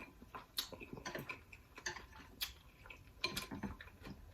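Mouth chewing food with soft, scattered clicks and smacks, a dozen or so short sounds spread across the few seconds.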